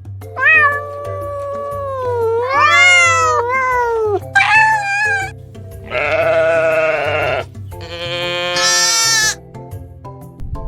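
Four separate animal calls over background music. The first is long and gliding, about four seconds; the next two have a wavering pitch; the last rises.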